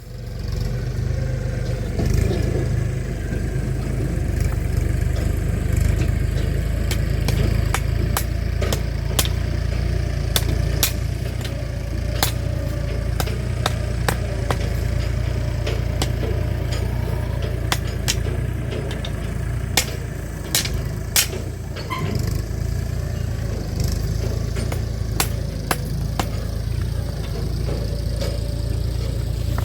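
An engine running steadily with a low rumble, a faint steady hum above it, and frequent sharp clicks and rattles.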